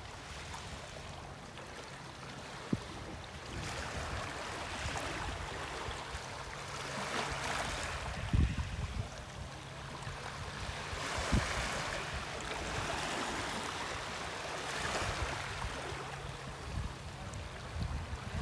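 Small waves lapping and washing onto a pebbly shore among rocks, the wash swelling every three to four seconds. A couple of low buffets of wind hit the microphone.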